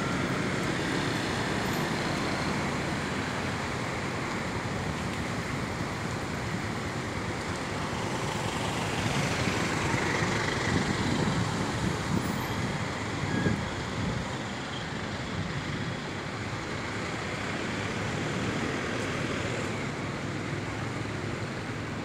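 Street traffic at a town intersection: motorcycles and cars passing, a steady wash of road noise that grows louder in the middle as vehicles go by, then eases off.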